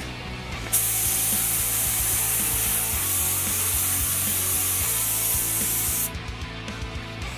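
Spray paint hissing onto a water pump pulley in one long, steady burst that starts just under a second in and cuts off abruptly about five seconds later.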